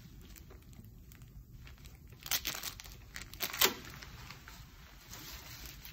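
Thin blue plastic barrier sleeves being peeled off and crumpled in gloved hands: short bursts of crinkling and tearing about two and three and a half seconds in, the second the loudest.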